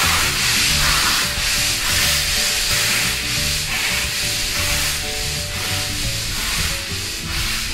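Steam locomotive chuffing in a regular beat with steam hissing as it pulls its train away, with soft background music underneath.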